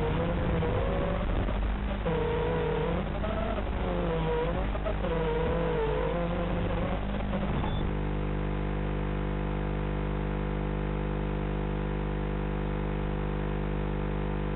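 Hiss and crackle of an FPV drone's analog camera and video-link audio, with faint wavering tones underneath and the drone's motors stopped. About eight seconds in it switches suddenly to a steady electrical buzz.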